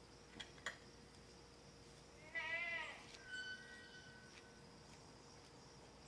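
A goat bleats once, a short wavering bleat about two seconds in, with a thin steady call just after it. Insects, crickets, keep up a steady high buzz throughout.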